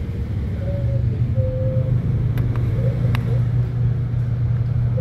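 A steady, low machine hum, the kind a running engine or motor makes in the background, with two light clicks near the middle.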